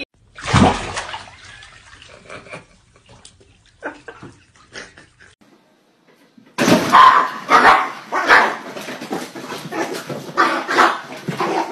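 Small dog barking repeatedly, about one to two barks a second, starting a little past the middle.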